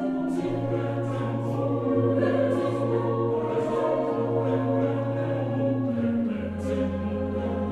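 Choir singing slow, sustained chords over a held low note, which steps down about six seconds in.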